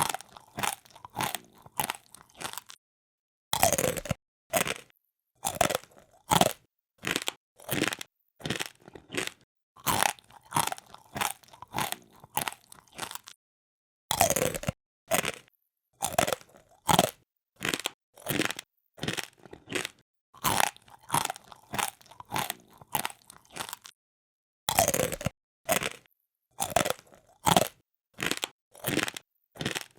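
A person chewing something crisp and hard with steady crunches, about two a second. The chewing stops briefly three times, and each time a new, louder bite starts the next run of crunching.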